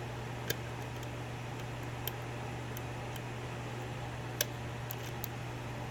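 Faint, scattered metal clicks of a lock pick working the pin stack of a Euro cylinder lock during single-pin picking, about five ticks with the loudest about four and a half seconds in, over a steady low hum.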